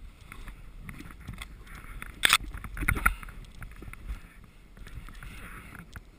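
Snowboard sliding and turning through deep powder snow, a steady scraping hiss. A sharp knock comes about two seconds in, followed by a few smaller knocks about a second later.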